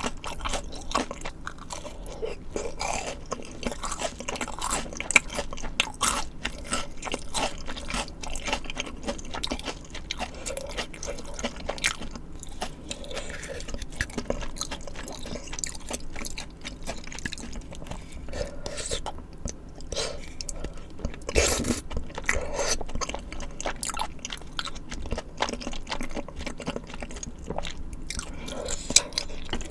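Close-miked eating of spicy tteokbokki and fried side dishes: a steady run of crunching bites and chewing, with one loud crunch about twenty seconds in.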